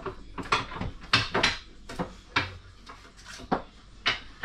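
Movable dinette table on a single pedestal leg being pushed back and forth by hand: a string of knocks, clunks and short scraping rubs, the loudest a little over a second in.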